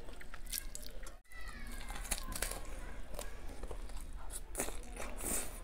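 Close-miked eating sounds: a fried dal kachori dipped in potato curry bitten with crunching and chewing, with many small crackles and clicks. Children's voices are faint in the background.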